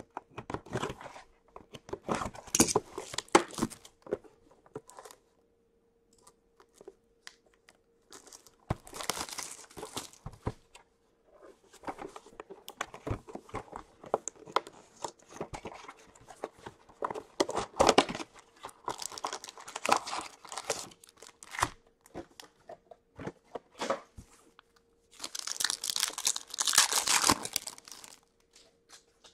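Plastic wrapping being torn and crinkled off a box of 2019-20 Upper Deck Allure hockey cards in irregular bursts, with small clicks of cardboard handling. Near the end a card pack's wrapper is torn open in a longer, louder burst of crinkling.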